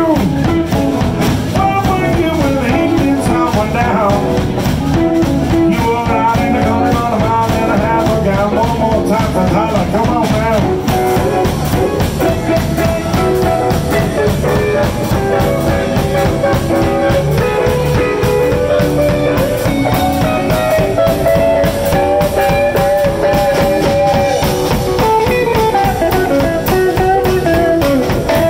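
Live blues band playing a song, with a steady beat and bending melodic lines throughout.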